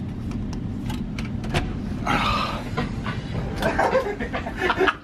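Steady low rumble of a ferry under way, with sharp clicks from a cabin door's handle and lock in the first second and a half as the door is unlocked and opened.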